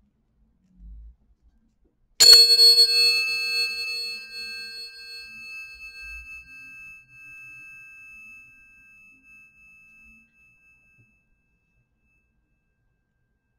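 Two tuning forks struck against each other once, about two seconds in: a bright metallic clang that leaves a high, pure ringing tone, with a lower one beneath it, slowly fading away over about eight seconds.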